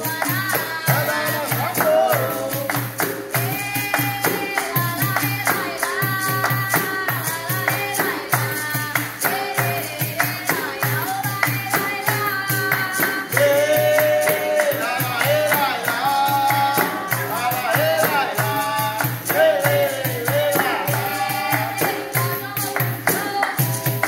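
Capoeira music: a singing voice over a berimbau, hand clapping and a jingling hand percussion instrument, keeping a steady beat throughout.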